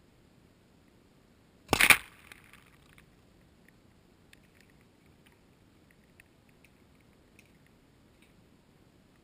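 A 2-liter bottle water rocket launching off its launcher: a short, loud burst of pressurized air and water about two seconds in that trails off quickly, followed by faint scattered ticks of falling water spray.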